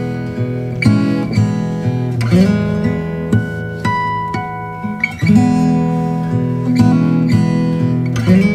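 Background music on acoustic guitar: plucked and strummed chords, with single notes ringing over them.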